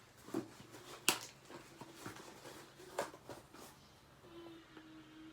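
Cardboard box being handled and opened by hand: a few sharp clicks and knocks, the loudest about a second in and at about three seconds, with quieter rustling between.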